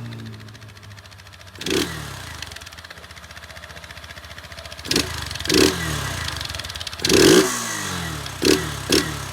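Honda CG 160 Titan's single-cylinder engine running through its stock exhaust, whose tip has been bent to make it louder, revved in short throttle blips about six times, the revs falling back after each; the longest and loudest blip comes about seven seconds in.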